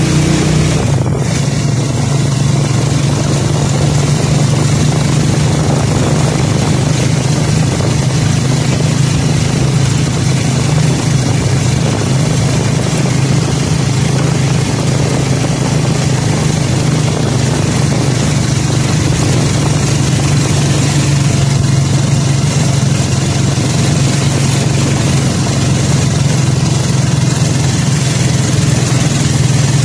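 Motorcycle engine running at a steady cruise under way, droning evenly, over a constant rush of wind and road noise.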